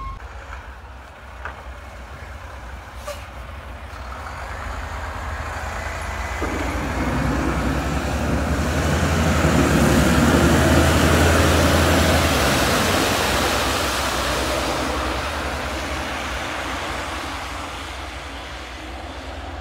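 Mack Granite plow truck's diesel engine passing by, growing louder to a peak about ten seconds in and then fading as the truck drives away.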